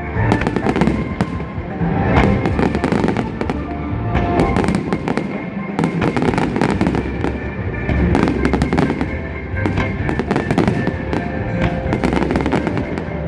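Fireworks going off in a rapid, continuous barrage of bangs and crackles, with music playing loudly underneath.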